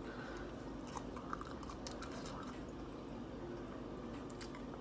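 Quiet eating sounds: chewing with small wet mouth clicks and smacks, over a steady low background hum.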